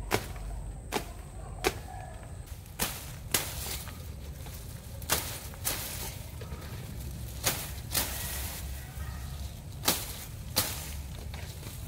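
A hand-held blade hacking through weeds and brush: repeated sharp swishing cuts, roughly one a second and sometimes in quick pairs.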